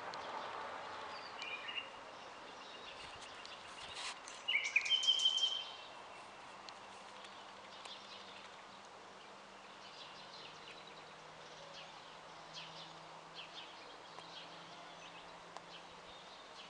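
Common nightingale singing: a loud, rapid phrase of repeated notes about five seconds in, with fainter, scattered song phrases before and after.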